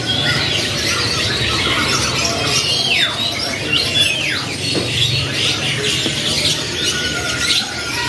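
Many caged canaries chirping and twittering at once in a dense, continuous chatter, with a few quick downward-sliding squeaks.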